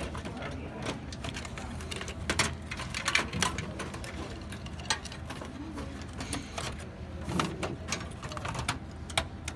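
Irregular clicks and knocks of cables and plastic power connectors being handled and pushed into place inside an open desktop computer's metal case, over a low steady hum.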